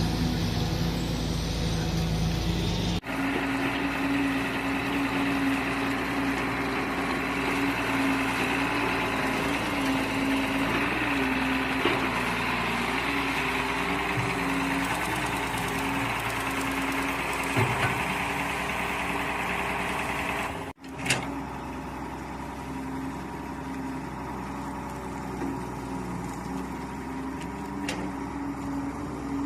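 Mini excavator engine running steadily while digging, its tone wavering at times as the load changes. The sound breaks off abruptly twice, about 3 and 21 seconds in, and is quieter after the second break.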